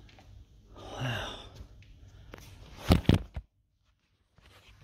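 A man's brief wordless vocal sound about a second in, then a few loud, sharp knocks, after which the sound cuts out suddenly to dead silence.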